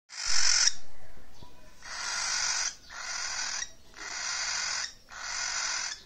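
Cockatiel giving a series of five harsh, raspy hissing calls, each under a second long and about a second apart, the first one the loudest.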